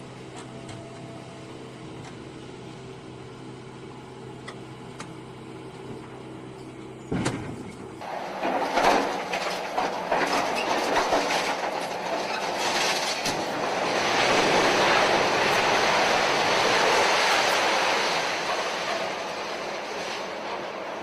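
A steady machine hum, then a sharp bang about seven seconds in, followed by loud, long grinding and clattering of heavy metal that swells and then eases.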